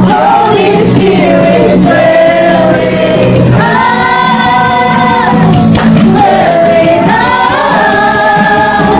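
A group of voices, men and women together, singing a Christian worship song in sustained phrases.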